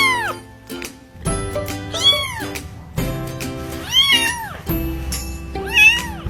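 Domestic cat meowing four times, about every two seconds, each meow rising then falling in pitch, over background music.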